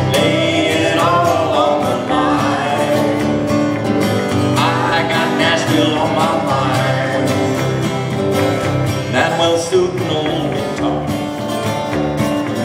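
Live country song played on two acoustic guitars, strummed steadily, with a melody line running over the chords between sung lines.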